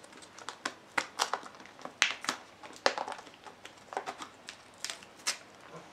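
Clear plastic lid of a tiramisu dessert cup being pried off by hand: an irregular series of sharp plastic crackles and clicks.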